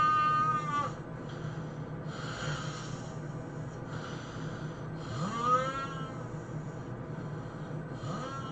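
A man snoring loudly. Each snore rises into a high, whistling squeal: one fades out about a second in, another comes about five seconds in, and a third begins near the end. Hissing breaths come between them, over a steady low hum.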